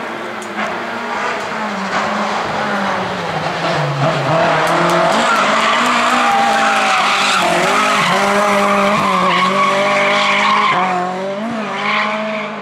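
Rally car engine revving hard, its pitch climbing and dropping through gear changes, getting louder about two seconds in and falling away near the end as the car goes past.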